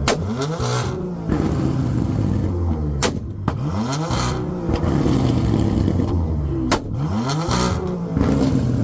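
A performance car engine is revved hard three times, the pitch climbing and falling each time, over a steady low idle. Each rev comes with a sharp exhaust crack or pop.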